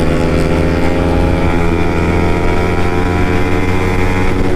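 Yamaha MT-15's single-cylinder engine running steadily through an aftermarket Akrapovic exhaust, holding an even pitch with a slight dip about two seconds in.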